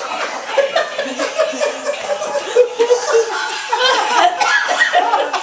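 Laughter and chuckling, with some talk mixed in.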